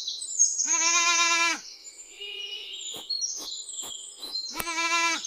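A goat bleating twice, each call steady and about a second long, with birds chirping throughout and a few sharp clicks between the bleats.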